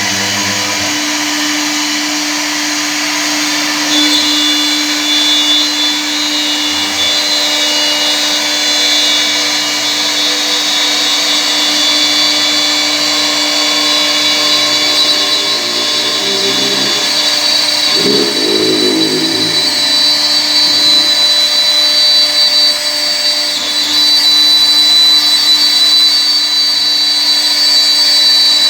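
CNC router's 2.0 kW air-cooled spindle running at high speed with a steady high whine while its bit routes into a wood sheet. The pitch is a little louder from about 4 seconds in, with a short burst of lower, wavering tones about 18 seconds in.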